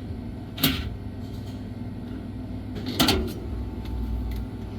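Two short sharp knocks about two seconds apart, from handling tools and hardware, over a low steady hum.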